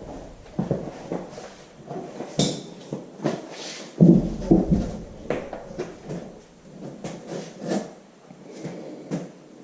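Irregular knocks and clinks of metal tools and engine parts being handled and set down on a bench, with one heavier knock about four seconds in.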